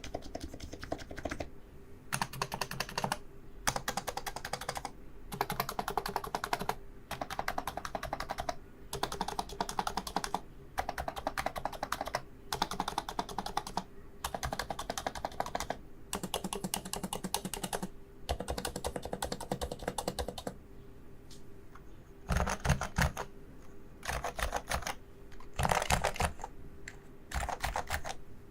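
Typing on a Topre Realforce keyboard with electro-capacitive switches: runs of rapid keystrokes, each about a second long, with short pauses between them. In the last quarter the strokes come louder, with a deeper thump as the keys bottom out.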